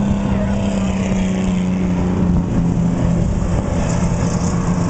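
Engines of pickup trucks racing around a dirt oval, a steady loud drone with one held pitch.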